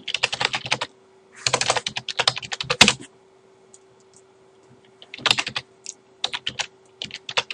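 Computer keyboard being typed on in quick runs of keystrokes, with a pause of about two seconds in the middle. A faint steady hum sits underneath.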